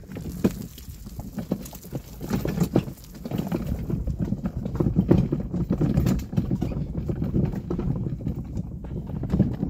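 Footsteps of a person walking along a muddy dirt road, a continuous irregular run of steps.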